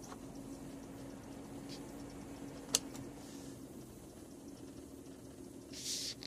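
Faint, high-pitched squeaking chirps from a Toyota 4Runner, the mouse-like noise whose cause is unknown, over a steady low hum that stops a little past halfway. A sharp click near the middle and a short hiss near the end.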